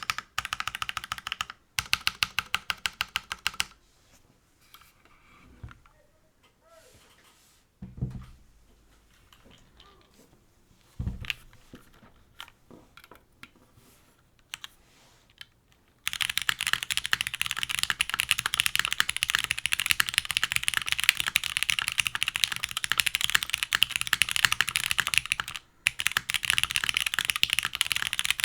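Typing on a custom mechanical keyboard with lubed Cherry MX Black linear switches, an aluminium plate and GMK keycaps: key presses for the first few seconds, then a quiet stretch of about twelve seconds broken by a few soft thumps, then fast, steady typing for the rest.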